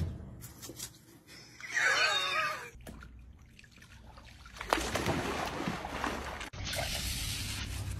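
A short wavering cry, from a voice or an animal, about two seconds in. Then a golden retriever goes into a swimming pool, and water splashes and sloshes from about the middle on.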